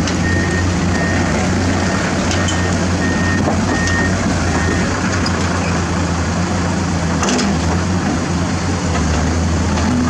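Heavy diesel earthmoving machinery running steadily, with a reversing alarm giving a string of evenly spaced high beeps that stop about halfway through.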